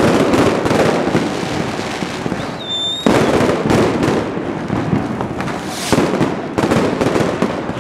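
Many aerial fireworks exploding at once: dense, continuous banging and crackling. There is a short high whistle about two and a half seconds in, followed by a loud burst.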